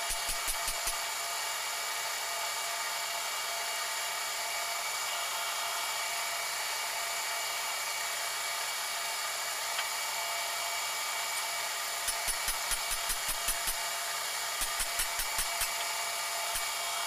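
Manual lathe turning a metal crusher shaft: the spindle runs with a steady high whine as the cutting tool takes a cut. Bursts of rapid ticking, about five a second, come in near the start and again in the last five seconds.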